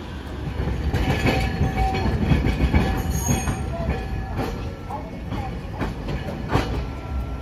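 Hiroshima Electric Railway 700-series streetcar pulling away over the pointwork, its steel wheels clacking several times over the switches and rail crossings, with brief wheel squeals and a low running rumble.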